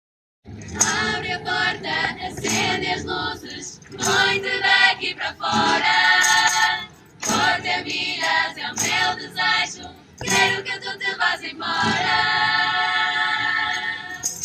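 A Portuguese women's student tuna singing together in a group, accompanied by acoustic guitars and accordion. The singing comes in phrases with short breaks between them.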